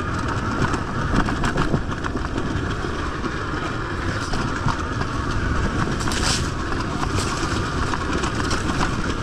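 Enduro dirt bike riding over a rough trail, its engine running steadily under the rider, with scattered knocks and rattles from the bike over the bumps.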